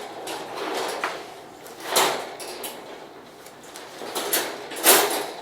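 Folding dog crate being assembled: its panels rattling and knocking as they are lifted and latched, with two sharp knocks, about two seconds in and near the end.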